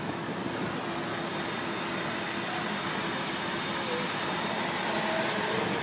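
Steady road and engine noise of a moving car, heard from inside its cabin, with a brief click near the end.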